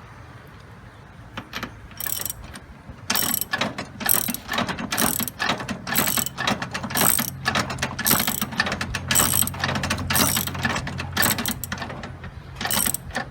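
Socket ratchet clicking in repeated strokes, about two a second, as the nut holding the new steering gear onto the lawn tractor's steering column is run down.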